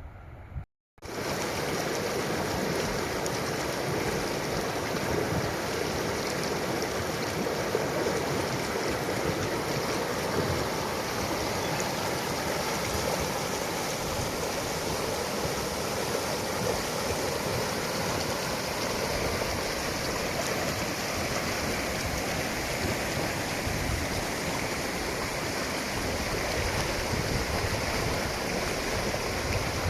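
Steady rush of a mountain stream, starting after a brief break in the sound about a second in.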